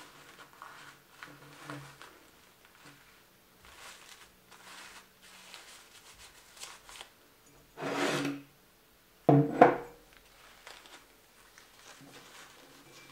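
Paper napkin being handled and folded, with soft rustling and rubbing throughout. Two louder, short sounds come about eight and nine and a half seconds in.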